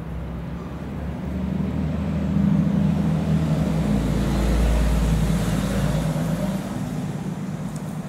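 A motor vehicle passing by: a low engine rumble and road noise that swell over the first few seconds and then fade away.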